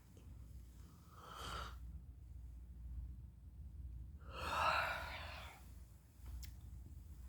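A person yawning: a short breath about a second in, then a longer, louder breathy yawn a little past the middle.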